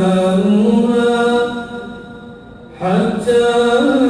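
Male voice reciting the Quran in melodic tajweed, holding long, slowly ornamented notes. It breaks off for a breath about two seconds in and then takes up a new melodic phrase.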